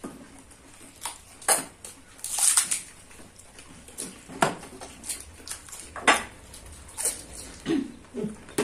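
Scattered clinks of steel spoons against steel bowls and plates, mixed with the crunching and slurping of panipuri being eaten, at an irregular pace.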